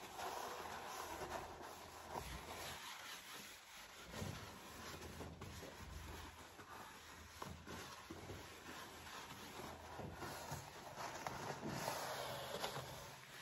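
A cloth wiping across the top of a wooden sideboard: a faint rubbing hiss that comes and goes, stronger at the start and again near the end.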